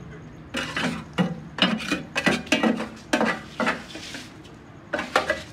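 A metal scraper scraping and knocking against the inside of a powder mixer's steel drum while clearing out detergent powder: a run of short scrapes from about half a second in, a pause, then two more near the end.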